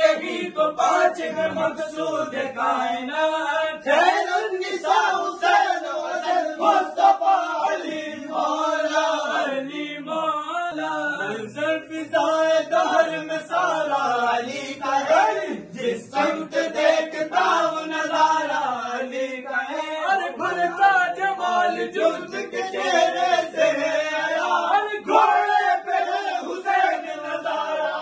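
A group of men chanting a manqabat, Urdu devotional verses in praise of Ali, singing together without a break.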